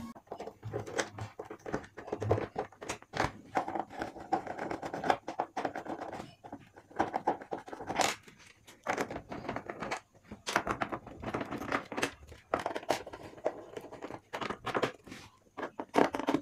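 Irregular clicks, scrapes and knocks of a screwdriver and hard plastic as an LED TV's back cover is unscrewed and opened.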